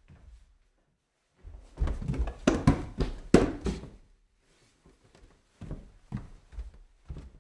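Footsteps climbing stairs: a quick run of heavy thuds about a second and a half in, the loudest part, then slower, softer single steps about two a second near the end.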